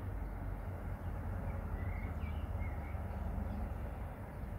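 Steady low outdoor rumble, with a few faint short bird chirps about two seconds in.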